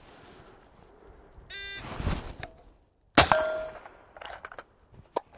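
A shot-timer beep, then suppressed shots from a 5.56 carbine with a B&T M.A.R.S. suppressor. One sharp report comes about two seconds in, and the loudest comes about three seconds in with a short ringing tone after it. A few light clicks follow near the end.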